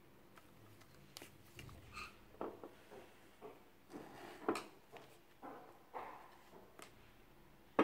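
Small handling noises: a string of light clicks, taps and rustles as multimeter test leads, an alligator clip and a probe are fitted to a small coil in a bench vise, with a sharper click at the very end.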